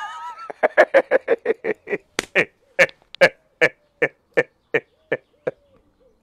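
A man laughing heartily in a long string of short "ha" bursts, quick at first and then spreading out, dying away about five and a half seconds in.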